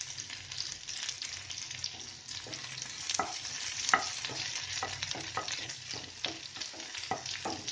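Chopped onions, garlic and whole spices sizzling in hot mustard oil in a frying pan for a tadka, while a spatula stirs them with irregular scrapes and taps against the pan.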